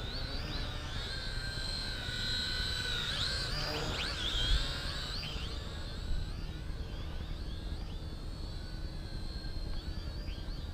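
XK X260 brushed quadcopter's motors and propellers whining, the pitch rising and falling as the throttle changes in high-rate flight.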